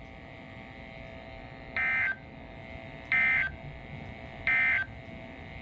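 NOAA Weather Radio EAS/SAME end-of-message data tones: three short buzzy digital bursts about 1.3 seconds apart, marking the end of the alert, over a faint steady hum from the radio.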